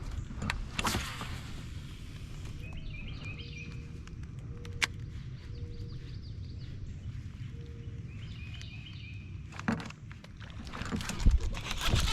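Outdoor ambience on the water: a steady low rumble with a few sharp knocks of rod and kayak handling, and short bursts of bird chirping twice. Handling noise grows louder and busier near the end.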